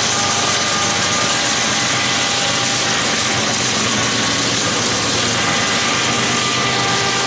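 Norfolk Southern freight train's diesel locomotives passing close by, their engines running in a loud, steady drone with a faint high whine over it.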